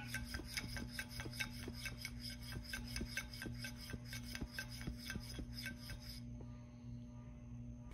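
A cat licks a blue plastic dish, its tongue rasping on the plastic in quick, even strokes, about four a second. The strokes fade about six seconds in, over a faint steady hum.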